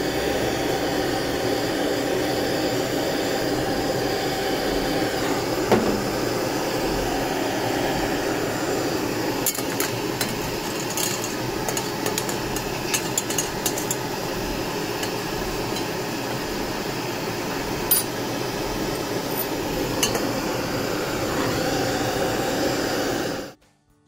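Handheld butane torches running with a steady hissing flame noise, heating a titanium knife scale to red heat to flame-blacken it. Scattered sharp metallic clicks sound about ten to thirteen seconds in and twice more later, and the sound cuts off suddenly near the end.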